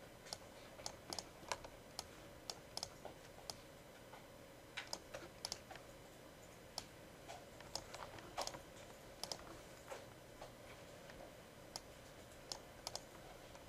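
Quiet, irregular clicks of a computer mouse and keyboard, some in quick pairs, over a faint steady hum.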